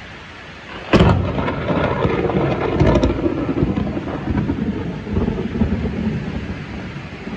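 Close thunder: a sudden sharp crack about a second in, crackling for a couple of seconds, then a long rolling rumble that slowly fades.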